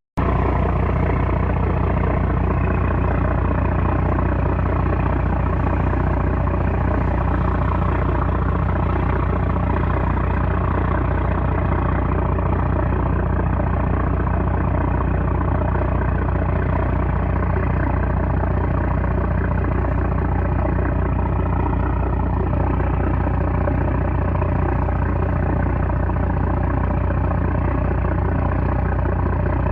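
A small trawler's 330-horsepower diesel engine running steadily at constant speed, a loud, low, unchanging hum.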